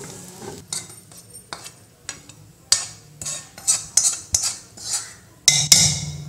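Metal spoon scraping and knocking against metal cookware as fried onions and chillies are scraped from the pan into a pot of cooked greens and dal. A few faint clicks give way, about two and a half seconds in, to a run of short scrapes about two to three a second, with the loudest clatter near the end.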